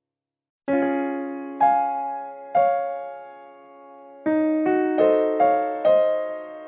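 Background music: a gentle keyboard melody starts about a second in, with a few slow single notes that ring out, then quicker notes near the end.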